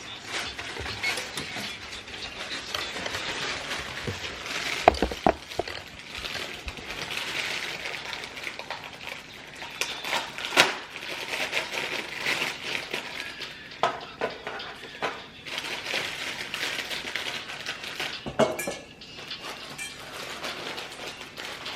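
Kitchen clatter while cake batter is made: utensils and a mixing bowl clinking, knocking and scraping, with a few sharper knocks.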